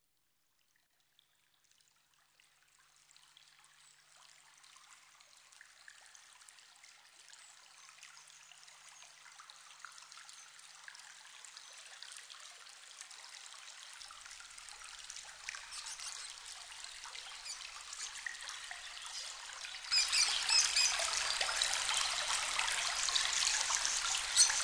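Water trickling and splashing down an artificial garden waterfall, fading in slowly from silence and turning markedly louder near the end.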